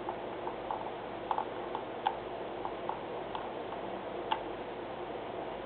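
Light, irregularly spaced clicks of a computer mouse, about a dozen over a few seconds, over a steady background hiss.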